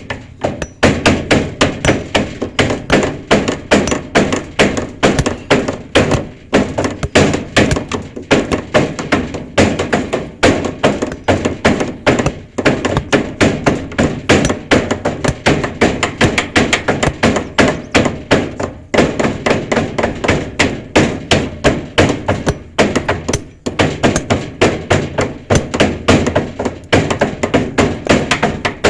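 Hammering for shed construction: loud, irregular hammer blows, several a second, overlapping as if more than one hammer is striking at once, with brief pauses now and then.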